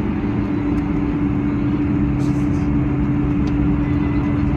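Steady drone inside the cabin of a Boeing 747-400: an even rush of noise with a constant low hum beneath it.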